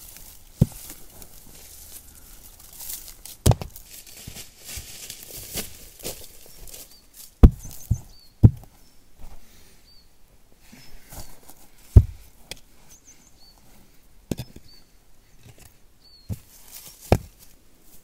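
A series of sharp knocks, about nine of them at irregular intervals, the loudest a little before and a little after the middle. Faint short high chirps come between them.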